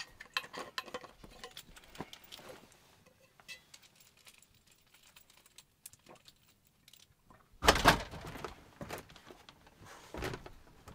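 Handling noises: scattered light clicks and knocks, then a louder clatter lasting about half a second about eight seconds in, and a shorter one about two seconds later.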